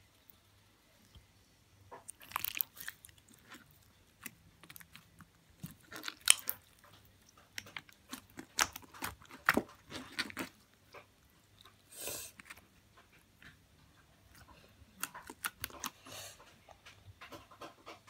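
Clear slime being squeezed and kneaded by hand, making irregular clusters of wet pops and crackles that start about two seconds in.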